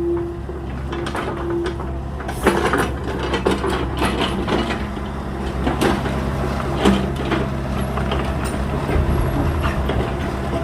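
Small agricultural excavator running steadily while its bucket crushes wooden pallets, with repeated sharp cracks and snaps of splintering wood.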